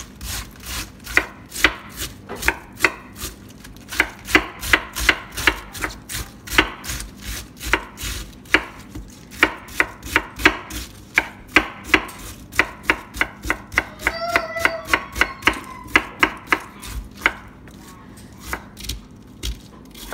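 Sharp kitchen knife slicing through a cabbage wedge onto a wooden cutting board, a crisp chop at each stroke, about two or three a second, with short pauses. The strokes thin out near the end.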